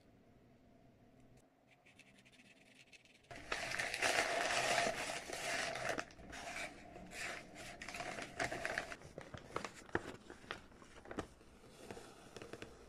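Plastic bags and scrap paper crinkling and rustling as they are crumpled and stuffed into a paper fish. The crinkling is loudest for several seconds starting about three seconds in, then thins to lighter scattered crackles and scratches.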